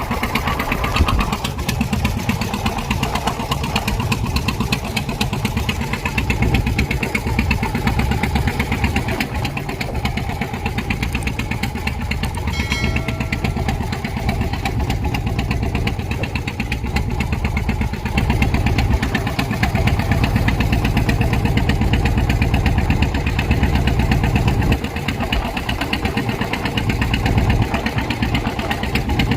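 Fishing boat's engine running steadily with an even, rapid pulsing.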